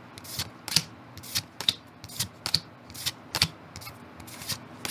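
Pokémon trading cards being flicked through one at a time in the hand, each card slid off the front of the stack with a short, sharp flick, about two a second.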